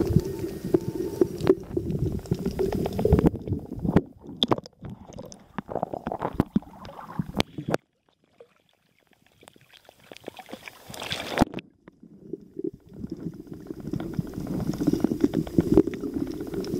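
Muffled underwater sound picked up by a camera in its housing: a low rumbling wash of water with scattered clicks and knocks. It drops almost to silence for a couple of seconds about halfway through, then comes back.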